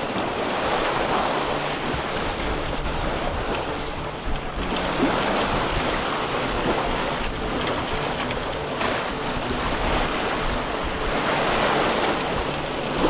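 Sea water rushing and washing along a sailboat's hull as it sails through open ocean, swelling and easing every few seconds, with wind buffeting the microphone.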